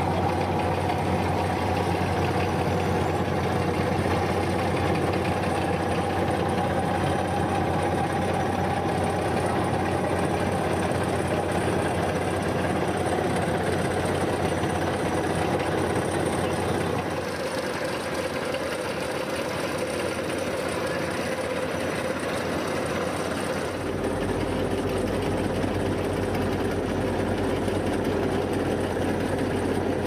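Asphalt paver running steadily as its screed spreads hot asphalt: a continuous engine hum with machine noise. The tone shifts abruptly a little past halfway and again later on.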